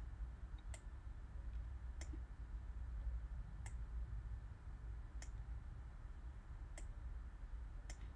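Six faint, sharp single clicks at a computer, about one every one and a half seconds, over a low steady hum.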